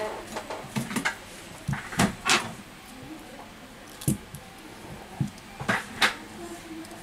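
Handling noise from a smartphone and a metal tool being picked up and moved about on a silicone repair mat: several short clicks and knocks spread through.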